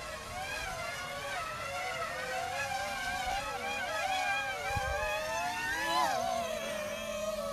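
Quadcopter motors and propellers inside a model Starship whining, the pitch wavering up and down as the throttle is worked during the descent. About six seconds in the whine rises sharply, then drops to a lower, steadier pitch as the model touches down.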